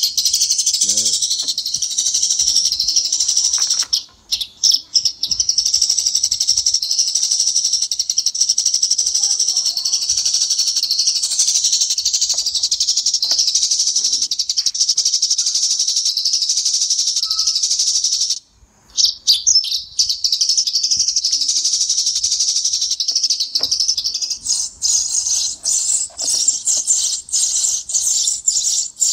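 Recorded sparrow calls played loudly through an E898 bird-trapping lure speaker modified with a 4.7 µF capacitor and a quartz piezo tweeter: a dense, continuous high chirping, clear and without hiss or muffling. It breaks off briefly about four seconds in and again about two-thirds of the way through.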